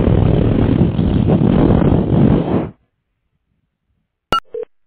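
A loud, harsh noise over a telephone line that cuts off suddenly under three seconds in. Near the end there is a click and two short beeps.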